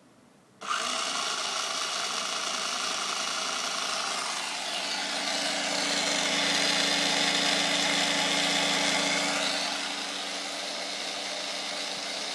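Small electric motor and gears of a toy RC car running with a steady whine, starting suddenly about half a second in. It gets a little louder in the middle and drops back near the end.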